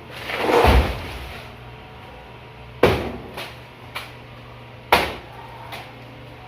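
A heavy thud with a scrape about a second in, then a few sharp knocks of hard objects being struck or set down, the loudest two about two seconds apart.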